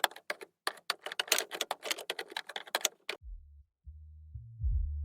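Rapid, irregular clicking, a dense run of sharp taps like typing, which stops about three seconds in. Low electronic music with bass notes then begins.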